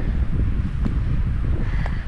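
Wind buffeting the microphone, a loud low rumble.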